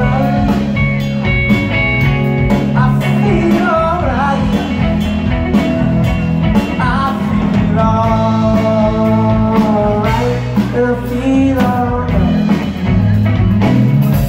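Live blues-rock band playing loud: electric guitar and drum kit, with long sustained melody notes that bend in pitch.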